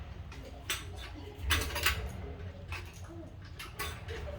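Scattered metallic clinks and knocks, about half a dozen, of gumball machine stand parts and a screwdriver being handled during assembly.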